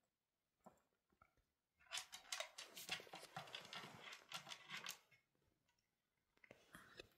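Cat pawing and scrabbling at a wooden treat puzzle box: a few faint ticks, then about three seconds of dense rustling, scratching and clicking, dying down to scattered ticks near the end.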